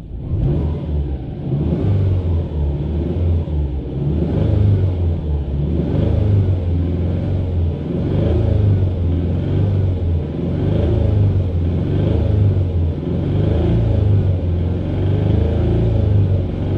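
Subaru EJ20 flat-four engine of a 2003 Legacy running steadily. The sound carries the abnormal engine noise the owner is investigating, which switching from 5W-30 to 10W-50 oil did little to improve.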